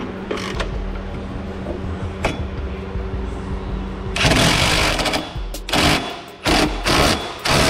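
A power tool, such as an impact driver, runs in three or four short rattling bursts starting about halfway through, as the exhaust clamp and hanger bolts are run in. A steady low hum is under it before the bursts start.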